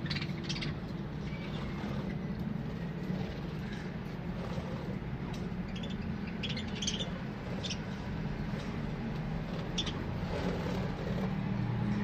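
Budgerigars chirping now and then in short high calls, with a cluster about halfway through, over a steady low hum.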